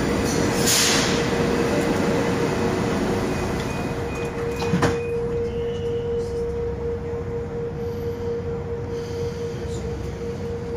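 Moscow metro 81-775/776/777 "Moskva 2020" train standing at a station, with a steady electrical hum, a brief hiss just under a second in, and its sliding doors shutting with a single knock a little under five seconds in.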